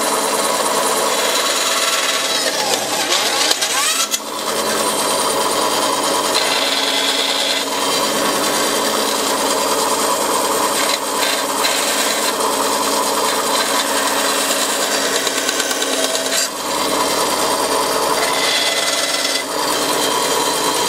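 Bandsaw running steadily as its blade cuts the corners off a small ebony-and-maple banjo bridge blank.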